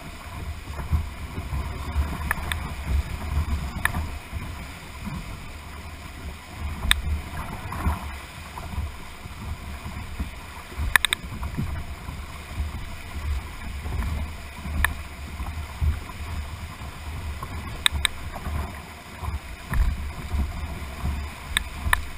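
Rushing whitewater of a class II–III rapid heard from right beside a canoe's hull, with a heavy, uneven low rumble and a few sharp knocks scattered through it.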